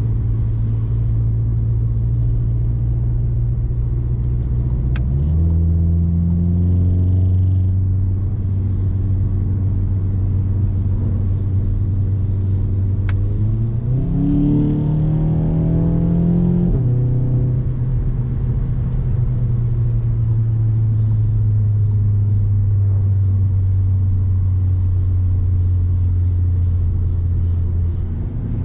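Engine of a VW Golf 7 GTI Performance, a 2.0-litre turbocharged four-cylinder with a sports middle silencer, heard from inside the cabin at motorway speed as a steady low drone over road noise. The note shifts about five seconds in. About halfway through the revs climb quickly and fall back a few seconds later.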